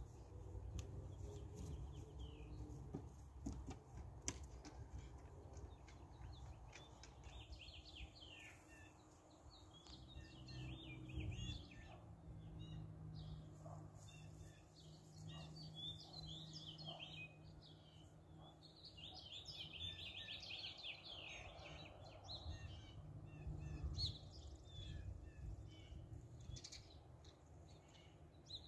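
Small birds chirping and singing, with many quick chirps that grow busier partway through, over a faint low rumble.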